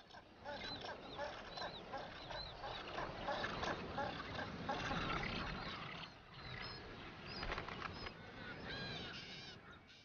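Din of a mixed colony of southern rockhopper penguins and black-browed albatrosses: many birds calling at once, with short high calls arching up and down over the general clamour.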